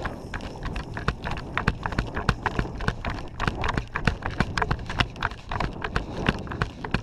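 Quick running footsteps crunching and thudding on gravelly dirt, several a second and uneven.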